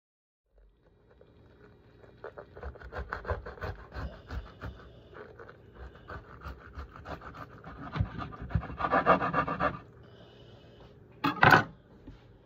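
A knife sawing through a crusty bread roll packed with filling: a run of crisp crunching and rasping strokes, at their loudest a little before the cut is finished. Near the end comes one short, loud burst.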